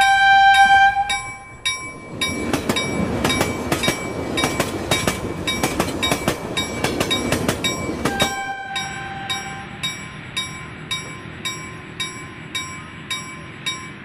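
A train passing with its wheels clattering, from about two seconds in until about eight seconds in, under a bell ringing steadily about twice a second. A sustained horn-like tone sounds near the start and again just as the train noise stops.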